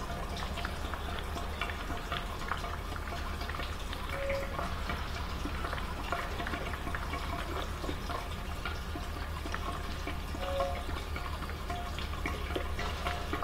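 Fuel pouring steadily from an upturned plastic jug through a flexible spout into a motorcycle's fuel tank, with small trickling ticks over a low steady shop hum. The tank is being filled to the top for winter storage.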